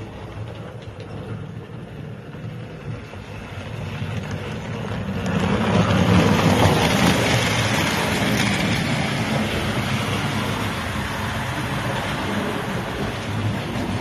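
American Flyer S-gauge model train running along the track, the steady mechanical running noise swelling about five seconds in as the cars pass close by, then easing off slightly.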